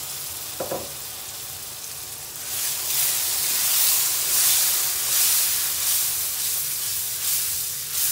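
Tomato, garlic, ginger, chilli and cashew paste sizzling in hot oil in a non-stick kadhai while a spatula stirs it. There is a brief knock under a second in, and the sizzle grows louder about two and a half seconds in.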